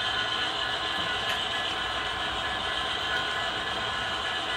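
Model train passenger cars rolling steadily along the track through a grade crossing, with an even running noise and no breaks.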